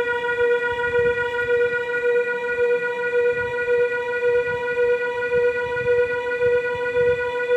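Casio SA-78 keyboard holding one long sustained note on its string voice, at a constant pitch with a slight regular pulsing in loudness.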